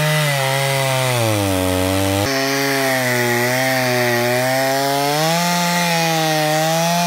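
Stihl MS 290 two-stroke chainsaw cutting through very dry beech logs. The engine note sags and recovers as the chain bites into the wood, with a sudden jump in pitch a little over two seconds in.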